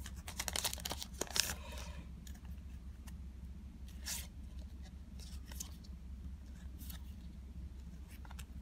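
A Digimon Card Game booster pack's foil wrapper being torn open, with a dense run of crackling rips in the first two seconds. After that come a few short, soft swishes of cards sliding against each other as they are handled.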